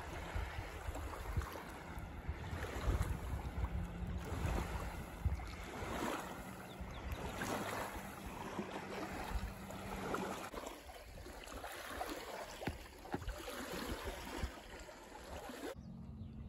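Lake water splashing and lapping as a small dog paddles through the shallows, with wind rumbling on the microphone. Near the end it drops to a much quieter, calm lake background.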